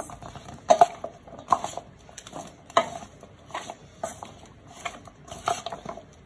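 Metal spoon clinking and scraping against a stainless steel vessel while tossing raw potato sticks in cornflour, in repeated, irregular strokes about every half second to a second.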